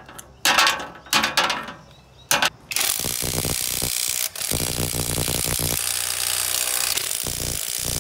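A few short rattling bursts, then from about three seconds in a cordless impact wrench hammering continuously on a car's wheel lug nut to undo it, with a brief break just after four seconds.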